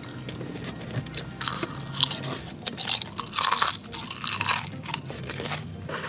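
Close-miked chewing of a mouthful of noodles with raw vegetables such as bean sprouts, cucumber and carrot, with a run of crisp crunches starting about a second and a half in, loudest just past the middle.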